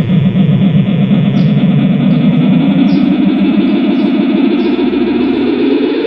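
Guitar effects pedal making a distorted noise drone through a guitar amplifier, with no notes played. Its pitch begins to rise steadily in the last second or two as a knob on the pedal is turned.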